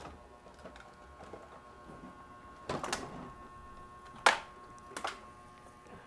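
A few knocks and clatters from an electric cord and plug being handled, the loudest about four seconds in, over a faint steady tone.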